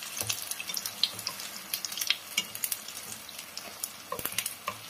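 Hot oil sizzling around pan-fried slabs of tofu in a frying pan, with many small irregular crackling pops.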